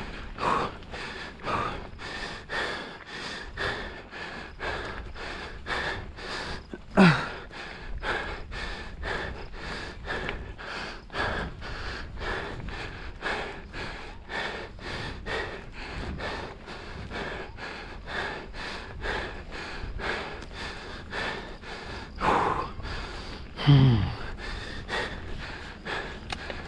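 Mountain bike rider panting hard from the effort of a race stage, about two breaths a second. A louder gasp falls in pitch about seven seconds in, and another comes near the end.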